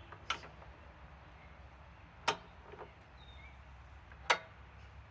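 Sharp clicks about two seconds apart, three in all, with a couple of faint short beeps between them, over a low steady hum: the buttons of a digital torque meter being pressed to set it to 150.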